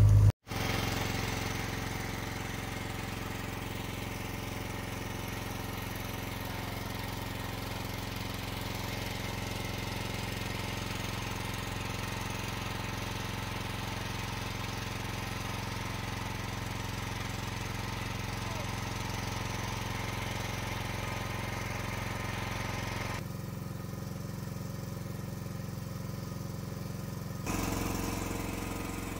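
Fishing boat's engine running steadily, a constant drone with an even pitch. Its higher part drops away for a few seconds near the end, then comes back.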